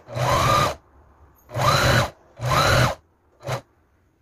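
Electric domestic sewing machine stitching a hem in four short runs, the motor speeding up and slowing down each time; the last run is brief.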